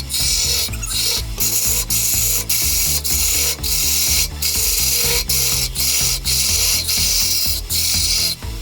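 Wood-turning lathe at work, a turning tool scraping the spinning wood with a loud, hissing cut broken by brief regular gaps.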